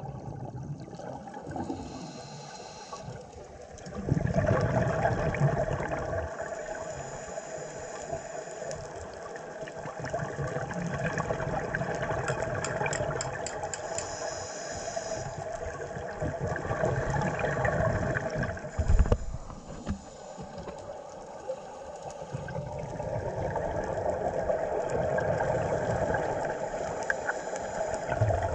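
Scuba regulator exhaust bubbles gurgling and rumbling underwater, in long surges as the divers breathe out.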